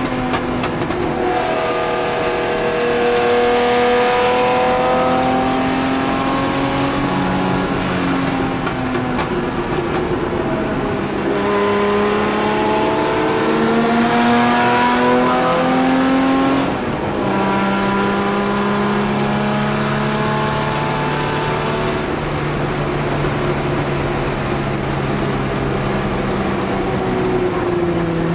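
1963 Jaguar XK-E's straight-six racing engine heard from inside the cockpit under hard acceleration. Its pitch climbs through the revs, drops at gear changes and lifts, with a brief dip in loudness about seventeen seconds in, then holds high to the end.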